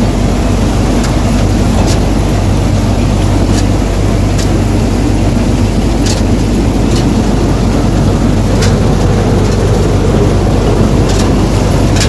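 Punni combine harvester running up close, a loud steady engine drone with its header working, and scattered sharp clicks every second or two.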